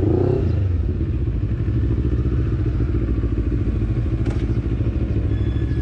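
Motorcycle engine idling, a steady low rumble with a fast even pulse, with one short click about four seconds in.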